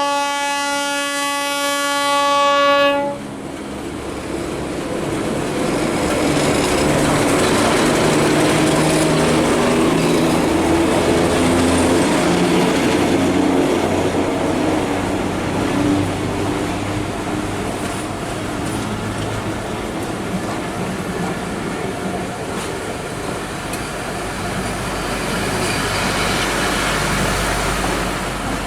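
Diesel locomotive horn sounding one long blast that cuts off about three seconds in, then the locomotive's engine running and the passenger coaches' wheels clattering over the rail joints as the train runs by. The rumble is loudest in the middle and eases toward the end.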